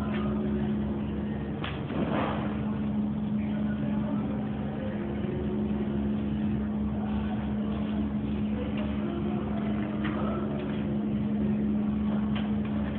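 Steady machinery hum of a meat-processing plant: one constant mid-low tone over a pulsing low drone, with a brief clatter about two seconds in and a few faint knocks.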